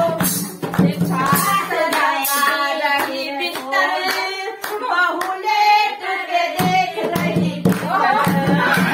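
A woman singing a devotional bhajan, with hands clapping a steady beat along with her.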